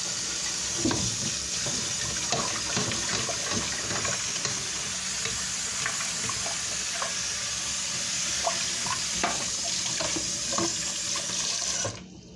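Kitchen faucet running into a saucepan in a stainless steel sink, with a few small clinks and knocks. The tap is shut off abruptly near the end.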